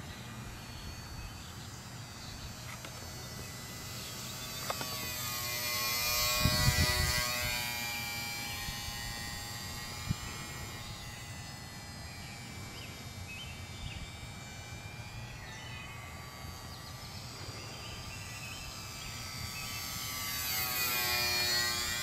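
Nine Eagles 778B P-47 micro RC airplane's 8 mm electric motor and propeller whining in flight. The whine swells and bends in pitch as the plane passes close, twice: about six seconds in and near the end.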